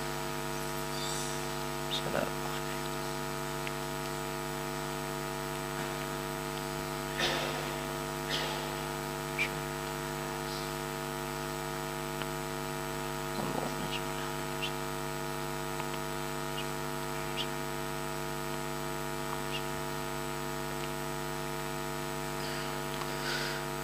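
Steady electrical hum, a mains buzz with many overtones from the mosque's open microphone and loudspeaker system, with a few faint brief noises scattered through it.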